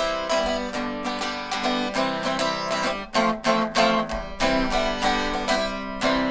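Small acoustic guitar strummed in a steady rhythm, playing the instrumental introduction to a song.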